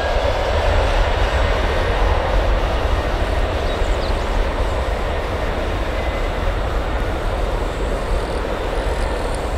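Twin jet engines of a Boeing 767-300 airliner running as it rolls away down the runway, heard from behind: a steady deep rumble with a rushing hiss.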